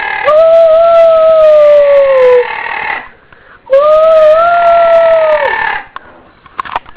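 Pet parrot making two long, drawn-out calls of about two seconds each, each rising briefly then sliding slowly down in pitch, with a short pause between them. A few faint clicks follow near the end.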